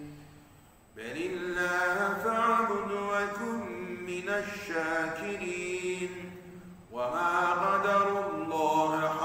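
A man reciting the Quran in Arabic in a melodic, chanted style, holding long phrases with gliding pitch. The voice comes in about a second in after a pause for breath and breaks off briefly for another breath near seven seconds.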